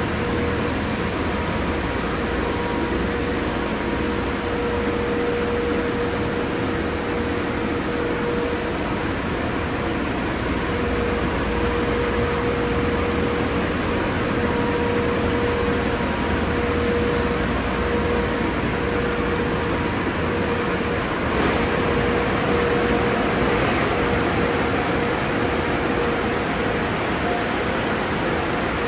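Express tunnel car wash running, heard from outside the tunnel: a steady rush of noise with a constant mid-pitched hum, swelling slightly about two-thirds of the way through.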